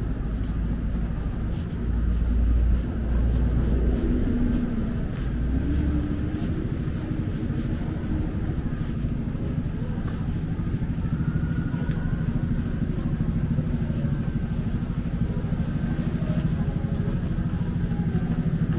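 City street traffic noise: a motor vehicle's engine rumbles close by for the first several seconds, then fades into a steady background of traffic.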